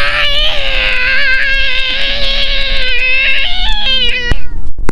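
A long, high-pitched wavering wail with a slight warble, held for about four seconds and cutting off sharply near the end. It is the sound set for the boys to copy.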